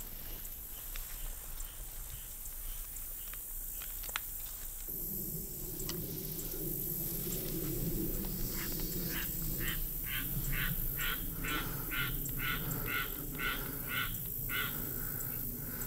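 A bird calling a rapid series of about fourteen evenly spaced notes, a little over two a second, starting about halfway through and stopping near the end.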